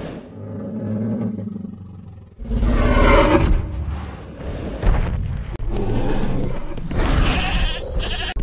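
Dinosaur (Tyrannosaurus rex) roar sound effect: a low growl, then a sudden loud roar about two and a half seconds in, and another loud roar near the end.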